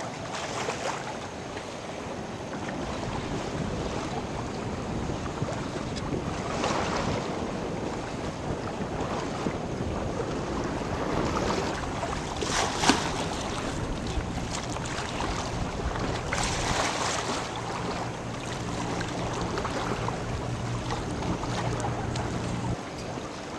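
Wind buffeting the microphone over the wash of choppy river water, swelling in gusts, the strongest about halfway through. A low steady hum comes in a little past halfway and stops just before the end.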